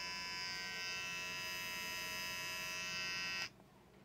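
Rechargeable gold T-blade beard trimmer running with a steady buzz, switched off about three and a half seconds in.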